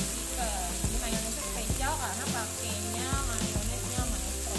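Marinated chicken breasts sizzling in a nonstick frying pan: a steady frying hiss, with background music over it.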